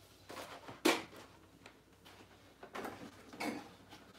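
A few knocks and light clunks of packages and containers being handled and set on a kitchen cabinet shelf, the sharpest about a second in.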